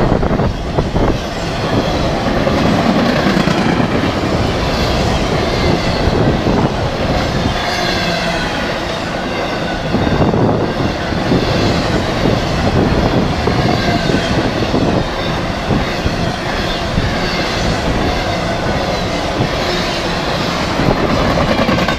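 Empty intermodal spine and flat cars of a Union Pacific freight train rolling past, their wheels running on the rails with a steady, loud rumble.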